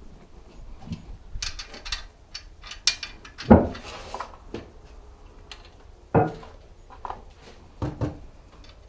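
Hand tools and metal bike parts clinking and knocking during assembly, with a series of small clicks and a loud knock about three and a half seconds in, then two more knocks near the end.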